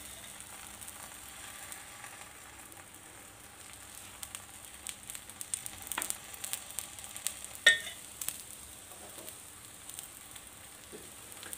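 Keema-stuffed paratha frying in ghee on a tawa over a low flame: a soft, steady sizzle with scattered small crackles, and one sharp click about eight seconds in.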